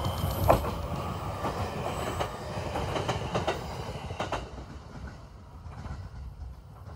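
A train running past on the rails, its wheels clacking over rail joints several times over a low rumble, then fading away about two-thirds of the way through.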